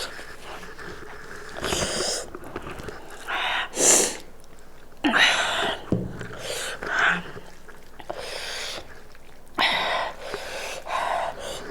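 Close-miked eating sounds of a person at a bowl of goat meat soup: a string of about eight short, noisy slurps, sniffs and sharp breaths, spaced a second or so apart.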